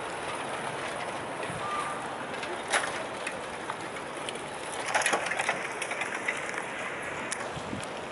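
Outdoor town ambience beside a canal: a steady background hum of distant traffic, broken by a few sharp clicks or knocks about three seconds in and again around five seconds in.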